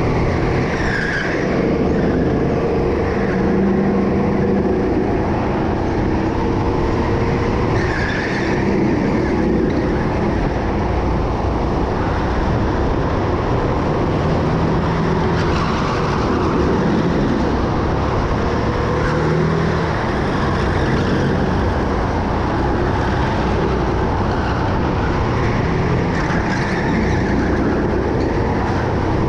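Racing go-kart engine running at speed, its pitch and level rising and falling with throttle, with brief tyre squeals several times through corners.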